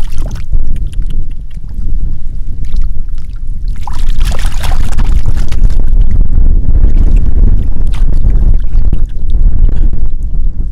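Wind buffeting the microphone with a heavy rumble, over hands splashing and sloshing in a shallow muddy puddle; a louder splash about four seconds in.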